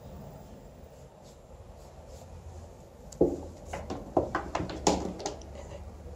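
An empty plastic cat litter tray knocking and clattering as a cat climbs into it and settles, a quick run of sharp knocks over about two seconds after a quiet start.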